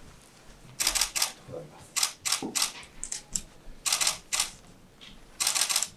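Camera shutters firing in rapid bursts of continuous shooting, four bursts of clicks each about half a second long.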